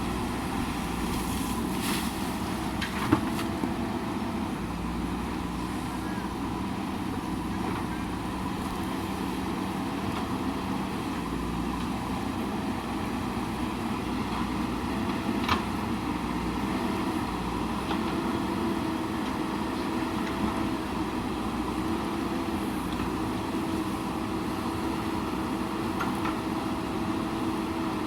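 JCB backhoe loader's diesel engine running steadily under work, its pitch shifting slightly as the revs change, with two sharp knocks: one a few seconds in and another about halfway through.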